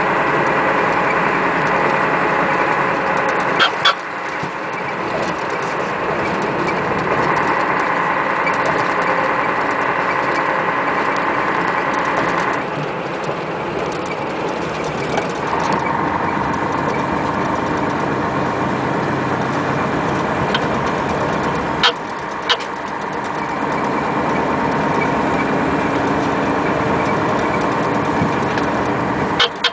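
Ikarus 395 coach on a Scania chassis on the move, heard from inside the passenger cabin: steady engine and drivetrain noise with high whining tones that shift in pitch a few times. There are a few short sharp knocks, two close together about two-thirds of the way in. The whining is the odd noise whose cause the uploader could not work out.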